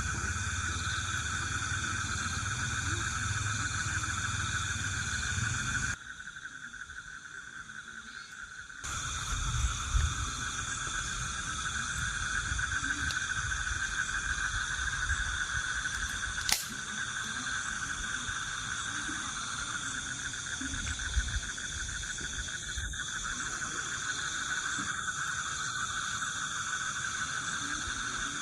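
Steady chorus of insects, several high-pitched drones layered together, over a low rumble. It dips for about three seconds some six seconds in, and a single sharp click comes a little past halfway.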